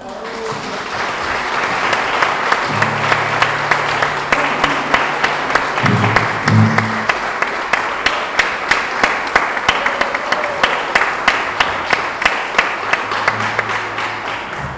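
Audience applauding after a performance, the clapping settling into a steady rhythmic beat of about three claps a second, with a few short low held tones underneath.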